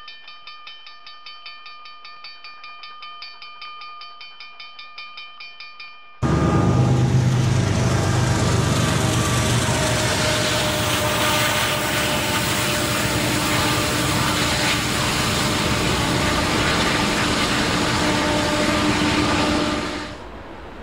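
Norfolk Southern freight train's diesel locomotives passing close by, a loud engine drone over the rumble of the train, coming in suddenly about six seconds in and dropping away sharply near the end. Before the train, a quieter ringing tone pulses rapidly, about four times a second.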